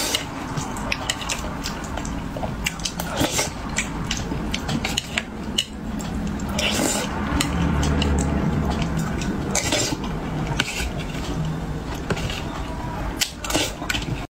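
A metal spoon and chopsticks clinking and scraping against a plate while scooping fish and sauce, in many short clicks. A low hum comes in about halfway through.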